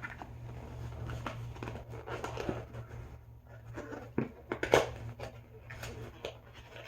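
Toy packaging being opened by hand: scattered rustling and small sharp clicks, with the loudest handling noises about four to five seconds in.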